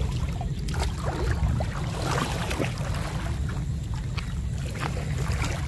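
Muddy floodwater sloshing and splashing around the legs of someone wading through it, in short irregular swishes over a steady low rumble.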